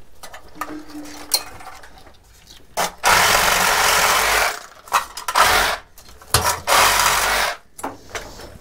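Milwaukee cordless power tool run in three bursts, the first and last over a second long, the middle one shorter, with small clicks and knocks between.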